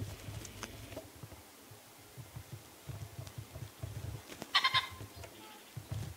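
Male common pheasant giving its harsh crowing call once, a short loud call about four and a half seconds in. This is the cock's territorial and courtship crow.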